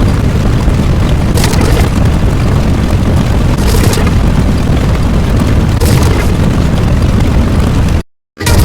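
Loud, continuous rumbling explosion sound effect, with a brief hissing flare about every two seconds. It cuts off abruptly about eight seconds in.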